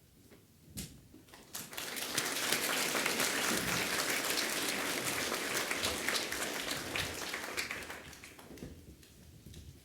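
Applause from an audience of school students: many hands clapping, starting about a second and a half in and dying away near the end.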